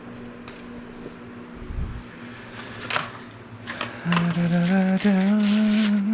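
A few short bursts of noise, then a small motor running with a steady whine from about four seconds in, stepping up slightly in pitch.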